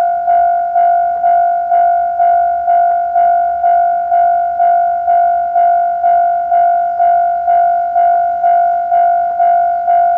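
Japanese level crossing warning bell ringing, a single high clang repeated evenly about twice a second, each stroke fading before the next: the signal that the barriers are down for an approaching train.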